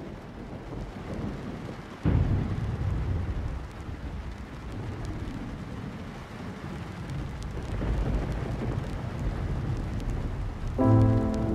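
Rain-and-thunder ambience at the start of a deep house track: a steady hiss of rain, with a rumble of thunder breaking in suddenly about two seconds in and slowly fading. A sustained chord on keys enters near the end.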